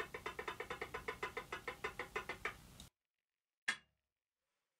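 Rapid, even metallic ticking, about seven ticks a second, each with a brief ring, that stops abruptly; about a second later comes a single sharp knock.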